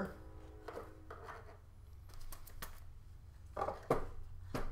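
Scattered clicks and knocks of hands handling wire connectors and a loudspeaker inside a plastic proton-pack shell, the loudest near the end, over a low steady hum.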